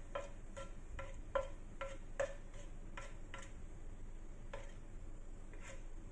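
Light, regular ticking, about two and a half ticks a second, each tick with a brief faint ring. It breaks off for a moment a little past the middle, then goes on.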